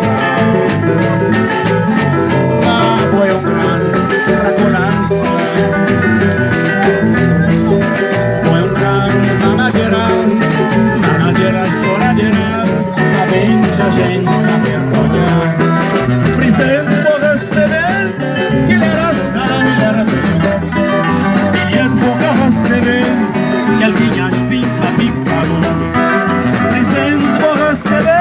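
Cape Verdean band music played live: guitars over a steady percussive beat, in a passage with no sung words.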